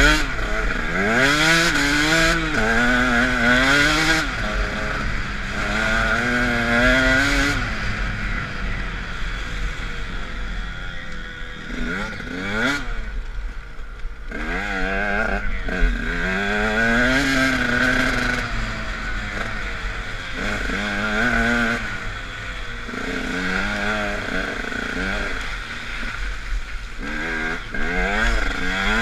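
KTM 125 SX two-stroke motocross engine revving hard and easing off again and again, its pitch climbing and dropping with each throttle and gear change. A sharp knock sounds right at the start.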